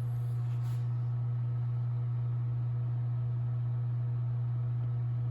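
A steady low hum with faint higher tones above it, unchanging throughout, with no knocks or taps.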